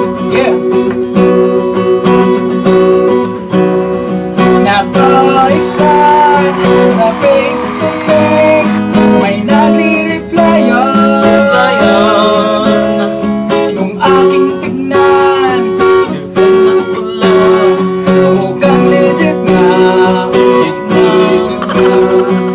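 Acoustic guitar strummed in steady chords while a man sings a song in Filipino.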